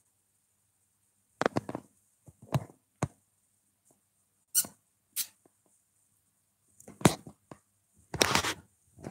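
Pomeranian puppy rooting and pawing at a bed sheet: short scratching and rustling noises, about eight of them, the longest near the end.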